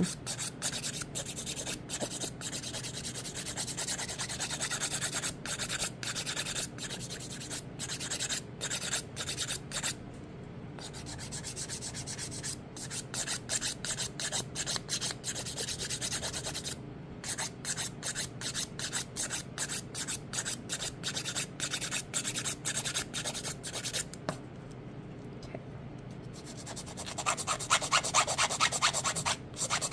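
Hand nail file, 180-grit side, rasping back and forth over set acrylic on an artificial nail tip in quick, even strokes, smoothing it down. It eases off twice, and the strokes get louder near the end.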